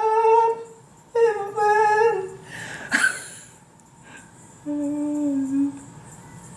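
A man singing along on his own, a few held notes sliding up into a phrase and then a second phrase, ending with one lower hummed note near the end.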